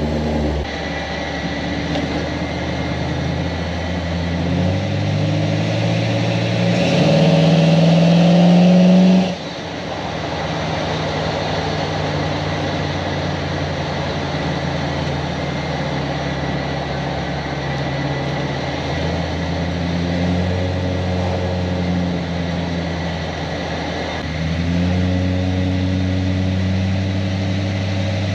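1972 Chevrolet Monte Carlo's V8 engine pulling under way. Its pitch climbs for several seconds and drops suddenly at a gear shift about nine seconds in. It then runs steadily at cruise and picks up again a few seconds before the end.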